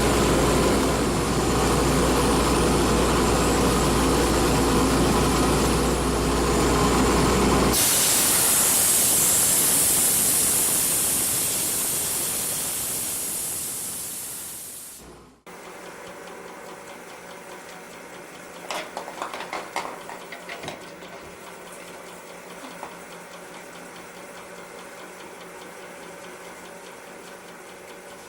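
Wood lathe running steadily with a hum. About 8 s in, a loud hiss takes over, fades and stops abruptly, and the lathe then runs quietly at low speed with a few light clicks.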